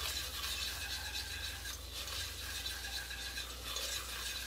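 Wire whisk stirring a thick butter-and-flour roux in an enameled cast-iron pot, scraping steadily and rapidly against the pot's bottom and sides.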